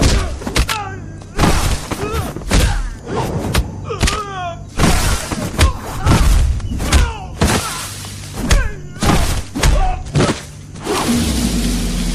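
Fight-scene sound effects: a rapid, irregular series of punch and kick thuds and impacts over background music.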